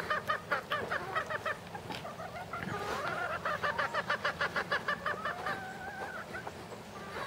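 Chickens clucking in rapid runs of evenly spaced notes, about seven a second, with one longer held call near the end.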